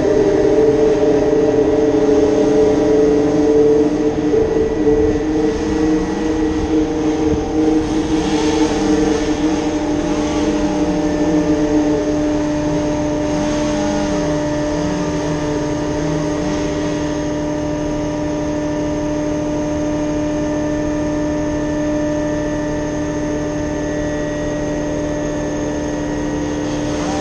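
Engine of a piece of tree-service machinery running steadily at speed. It is louder and more uneven for about the first twelve seconds, then settles to an even, steady sound.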